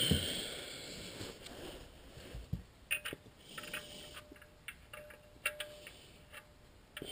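Faint, scattered light clicks and taps from hands and the oil drain plug being handled at the engine's oil pan, a low thud about two and a half seconds in.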